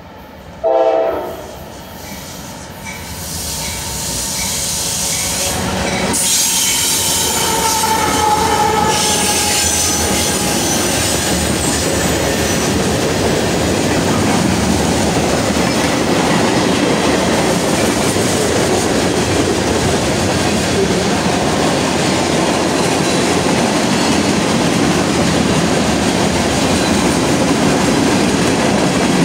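CSX freight train passing close by: a short, loud locomotive horn blast about a second in, then the diesel locomotives, an SD40-2 among them, grow louder as they draw level about six seconds in. After that the freight cars roll by with a steady rumble and clatter of wheels on rail joints.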